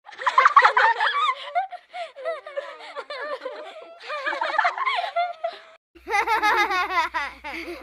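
Children's laughter sound effect: high-pitched giggling, then after a short break about six seconds in, a second, quicker run of laughter with a low hum under it.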